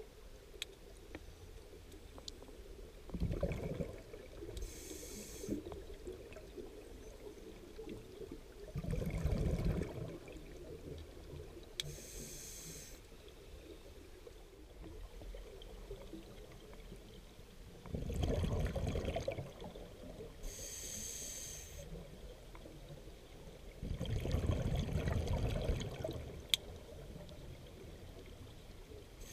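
Scuba diver breathing through an open-circuit regulator underwater: four exhalations come out as low bursts of bubbles, each followed a little later by the shorter hiss of an inhalation through the regulator.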